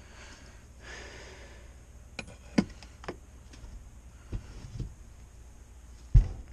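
Soft rustling, then a series of sharp clicks and knocks from tools and parts being handled, with a heavier low thump about six seconds in.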